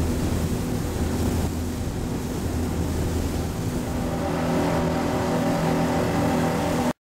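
Boat engine running steadily under way, with a rush of wind and water over it; the sound cuts off abruptly near the end.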